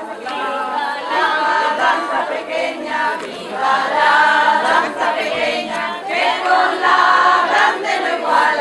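A group of voices singing together in long held phrases.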